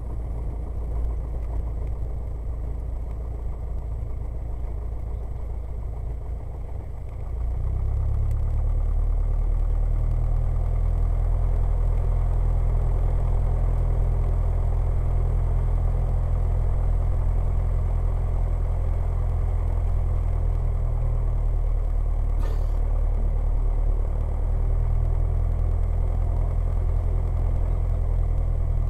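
Cessna 172's piston engine and propeller heard from inside the cockpit, running at low power on the runway. About eight seconds in, the engine speeds up and gets louder, then holds a steady note.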